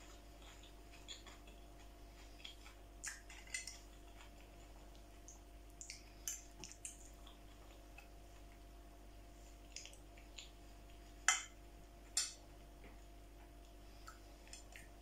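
Quiet eating sounds: chewing and mouth sounds with scattered light clicks of a metal fork against a china plate, and two sharper clicks near the end.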